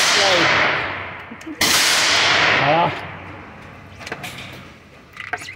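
A loud gunshot about a second and a half in, its report echoing and dying away over more than a second, with the echoing tail of another shot fading at the start. A few light clicks follow near the end.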